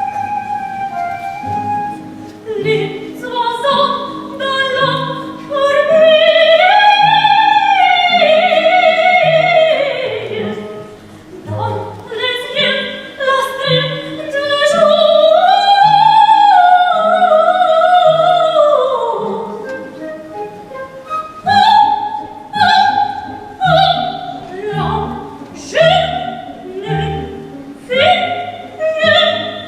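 Operetta singing with instrumental accompaniment: a high voice sings long phrases with vibrato that climb and fall, then shorter separate notes in the last third.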